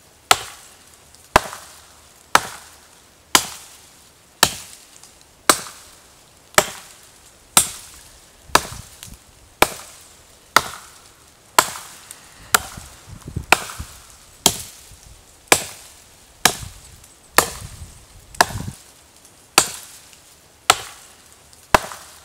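Two axes taking turns chopping into a small tree trunk: sharp, even blows about once a second, each with a short woody ring.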